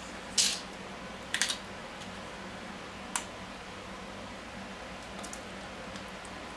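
Plastic kefir bottle being handled: two short swishes as it is shaken in the first second and a half, then a sharp click of the cap about three seconds in, over a steady low hum.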